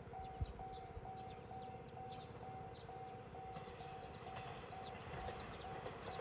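Railway level-crossing warning bell ringing, a pulsing electronic tone about twice a second, signalling an approaching train. Birds chirp over it, and there is one short thump about half a second in.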